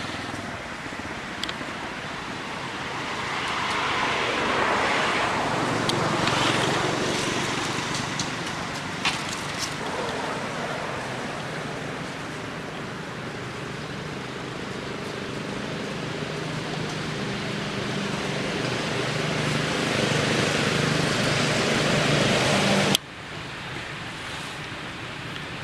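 Motor traffic: a motorbike engine swells past, then an engine hums steadily for several seconds. The sound cuts off suddenly near the end, leaving quieter background noise.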